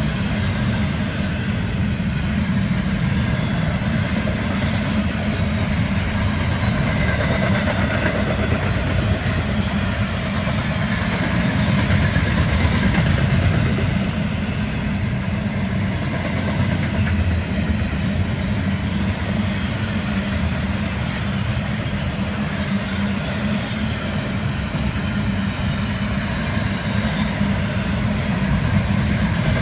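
Freight train of double-stack container well cars rolling past: a steady rumble of steel wheels on the rails.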